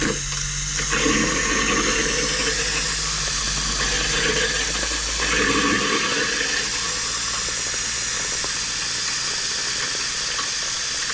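Faucet running hard on cold, a steady rush of water as the cabin's plumbing is flushed of winterizing antifreeze, with a steady low hum underneath for about the first half.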